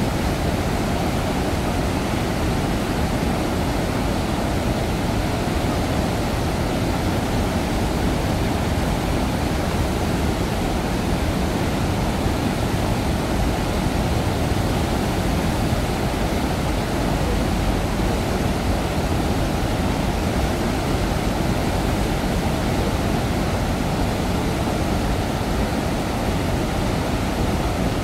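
Floodwater pouring through a dam's open spillway gates, a steady, deep roar of churning whitewater. The gates are open to lower the reservoir after heavy rain.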